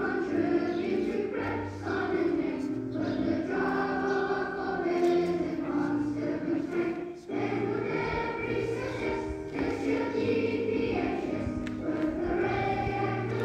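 A choir singing a song, with notes held for a second or two at a time and a short break about halfway through.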